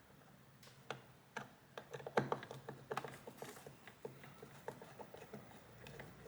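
Faint, irregular small clicks and taps of a screwdriver, screws and plastic parts being handled while taking apart a hoverboard's wheel housing.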